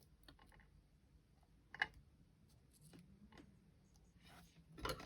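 Faint handling noise of small paper-craft pieces and tools on a work table: a sharp click about two seconds in and a short cluster of taps near the end.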